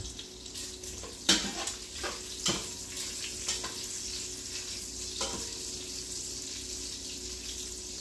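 Chopped bacon sizzling as it fries in a Dutch oven. Tongs stir it, knocking and scraping against the pot a few times, loudest just over a second in.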